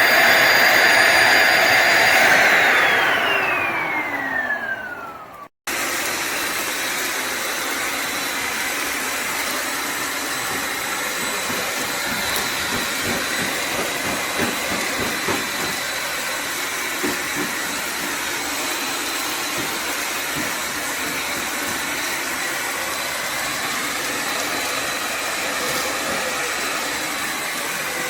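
Bissell Symphony vacuum–steam mop's motor running, then switched off and winding down, its whine falling in pitch over about three seconds. After a brief gap it runs again steadily, with a thin high whine over a hiss.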